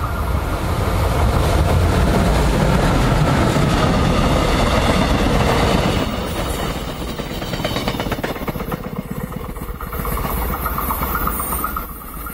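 Electric locomotive hauling a three-car Mugunghwa passenger train past at close range: a loud, steady rush of running noise for the first six seconds. Then come quick wheel clicks as the coaches go by, and the sound eases off near the end.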